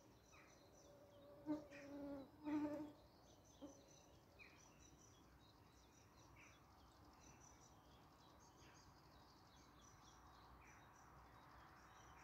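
A flying insect buzzing briefly close past the microphone about a second and a half in, a steady-pitched drone lasting just over a second. Faint bird chirps and distant high trills are heard around it.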